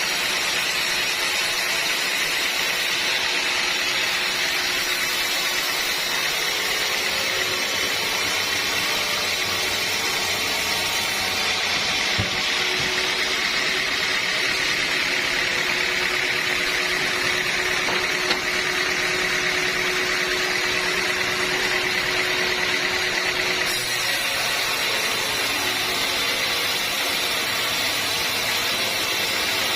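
Sawmill saw running steadily. For about twelve seconds in the middle the sound shifts: the highest hiss drops away and a steady hum stands out.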